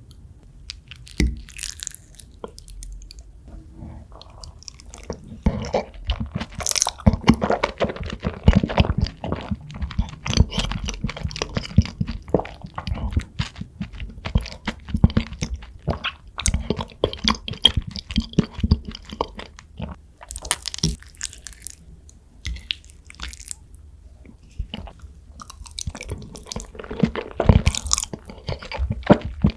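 Close-miked chewing and biting of lasagna: a rapid run of wet clicks and soft low thumps that comes in waves, with a quieter stretch about two-thirds of the way through before another burst near the end.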